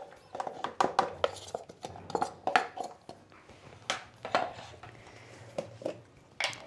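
Irregular light clicks and clinks of kitchen containers and utensils being handled, with a sharper knock near the end.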